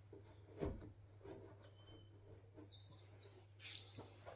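A bird singing faintly: a quick run of high notes stepping down in pitch, over a low steady hum. Two soft knocks, one near the start and one near the end.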